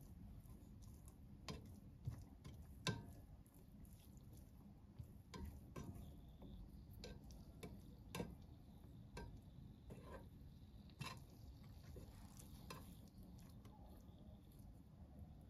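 Black plastic slotted spatula stirring and folding cooked rice and lentils in a stone-coated pot, with irregular light clicks and scrapes of the spatula against the pot, the sharpest about three seconds in.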